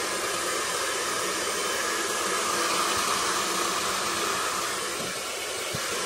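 Handheld hair dryer running steadily, blowing air at ice built up in a fridge's freezer compartment to melt it. It makes a steady rushing hiss with a faint whine.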